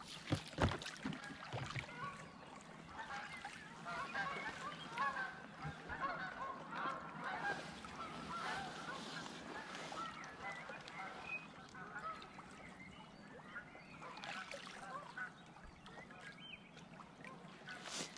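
A flock of geese honking, many short overlapping calls that thicken a few seconds in and thin out toward the end. A couple of sharp knocks sound just under a second in.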